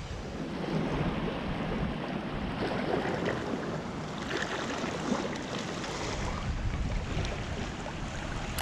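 Wind on the microphone over small waves lapping against a rocky shore, a steady rushing noise with no distinct events.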